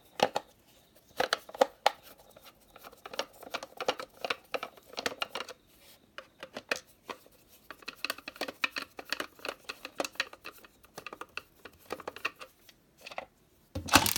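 Screwdriver backing small screws out of the plastic base of an essential oil diffuser: irregular clicks, ticks and scratches of the driver and the plastic housing being handled, with a louder clatter at the very end.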